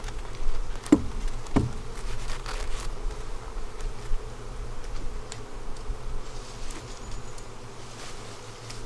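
Honeybees buzzing around an opened hive, a steady hum, with two short falling-pitch buzzes about a second in as bees pass close.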